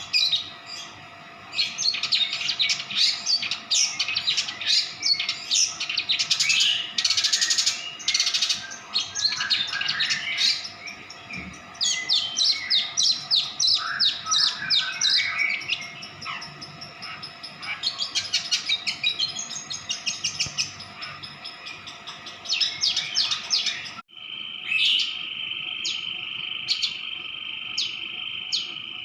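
Songbird singing in rapid runs of high chirps and trills, phrase after phrase. About 24 seconds in the sound cuts off abruptly and a steady high buzzing tone with evenly spaced sharp ticks follows.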